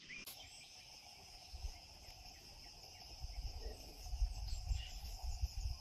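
Faint steady high-pitched chorus of insects in tropical forest, with an uneven low rumble growing in the second half.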